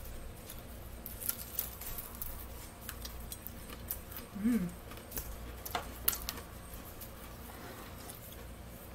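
Chewing of a bitten fried chicken drumstick, heard as a scatter of small clicks and crackles, with a short hummed vocal sound about four and a half seconds in.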